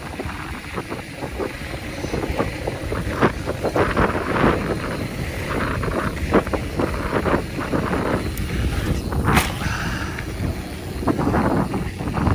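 Mountain bike riding over a rough dirt trail: wind noise on the microphone and tyre noise, with repeated rattles and knocks from the bike over bumps, and one sharp clack about nine seconds in.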